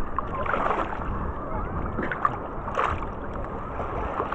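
Sea water sloshing and splashing around a bather, with a couple of louder splashes, one about half a second in and one near three seconds, over faint distant voices.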